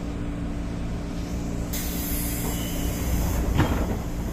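Pneumatic doors of a 203 series electric commuter car closing: a hiss of air from about a second and a half in, ending in a thud as the doors shut, over the car's steady low electrical hum.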